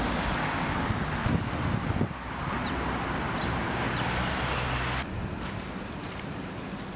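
City street traffic: cars driving past, with wind on the microphone. The sound changes abruptly twice, about two and five seconds in, as separate street recordings follow one another.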